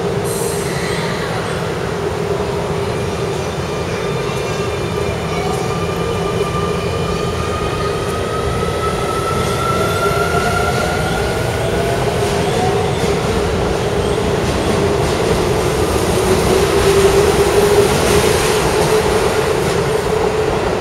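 Keio electric commuter train pulling out of the station: the rising whine of its electric drive as it gathers speed over the running rumble of the cars, growing a little louder as the cars pass close by near the end.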